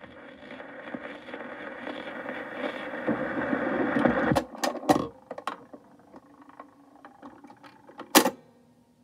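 Stylus riding the run-out groove of a shellac 78 on a Garrard record changer: a hissing, crackling surface noise with a low steady hum, then a few sharp clicks as the changer's mechanism lifts the tone arm, and one louder clunk near the end as the arm swings back to its rest.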